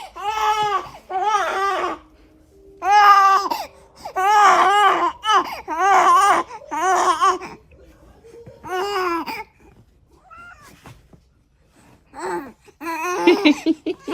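A baby's voice babbling in runs of short, high, arching sounds, with a pause about two-thirds of the way through before it starts again.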